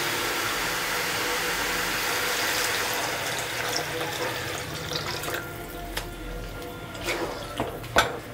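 Water poured into a hot aluminium pot of frying spiced crane meat, a loud hiss that fades about five seconds in. Near the end a metal ladle stirs and knocks against the pot, a few sharp clinks.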